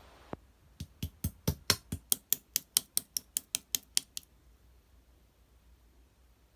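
Blue clear slime with a firm, jelly-like texture being poked and pressed with the fingers, giving a quick series of sharp clicks, about five a second, that stop a little past four seconds in.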